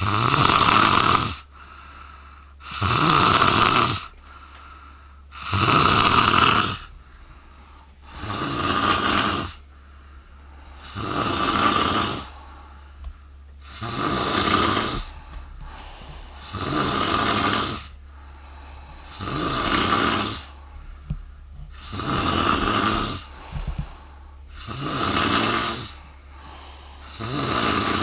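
A sleeping woman snoring very loudly, one long snore roughly every two and a half to three seconds.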